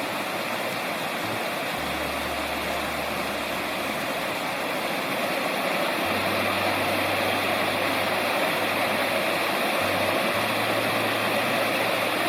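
Steady rushing of a mountain stream, an even unbroken hiss of water.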